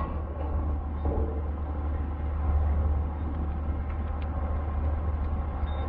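Steady low rumble of wind buffeting the microphone outdoors, with a faint even haze above it.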